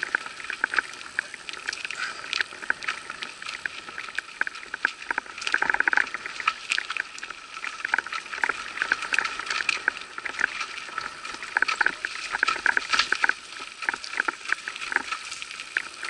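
Mountain bike rolling over a rough dirt forest trail: a dense, irregular clatter of clicks, rattles and crackling from the bike and its handlebar-mounted camera shaking over the bumps.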